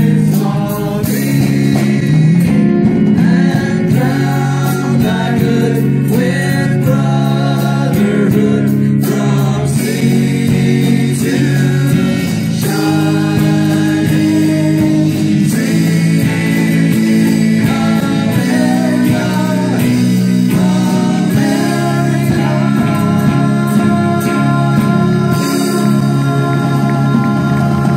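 Live country band playing a song: singing at the microphones over electric guitars.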